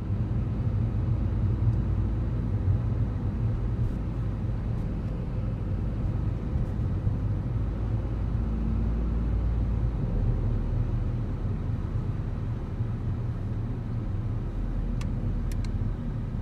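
Car cabin noise while driving: a steady low rumble of engine and tyres on the road, with a few faint clicks near the end.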